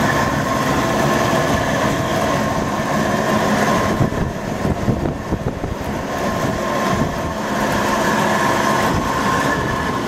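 A 1970s Singer outdoor air-conditioning condenser unit running: a steady hum from its compressor and fan with several constant whining tones on top, an unusual noise for this kind of unit. The sound wavers unevenly for a few seconds in the middle.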